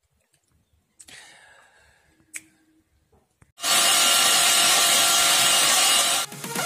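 Angle grinder fitted with a homemade blower attachment running, blowing air into a wood fire: a loud steady whine with a rush of air that starts about halfway through and cuts off suddenly near the end. A faint click comes before it.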